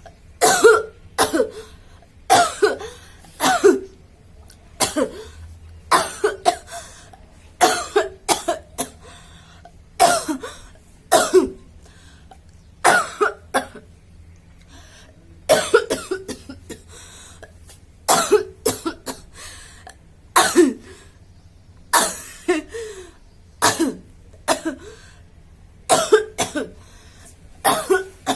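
A woman coughing over and over, in clusters of two or three sharp coughs about every second or two. The coughs are put on for fun, not from a real cough.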